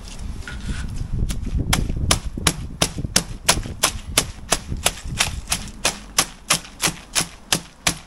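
Timber tamping board being lifted and struck down on a freshly poured concrete slab by two workers, making a sharp knock about three times a second in a steady rhythm that starts a little over a second in.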